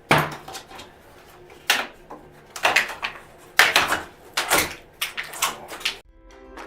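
Paper-backed faux tile wall panels being pried and ripped off around a shower, giving about seven sharp cracking, clattering knocks at uneven intervals in a small tiled room. The noise stops suddenly about six seconds in.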